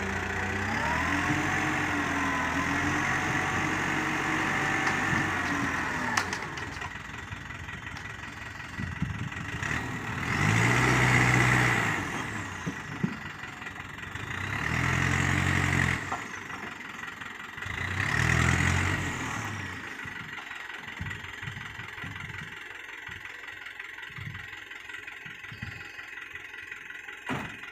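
Small dump truck's engine running at raised speed, its pitch rising and falling, while the tipper bed is hydraulically raised to unload soil. Then it is revved three times, about four seconds apart, before settling to a quieter idle.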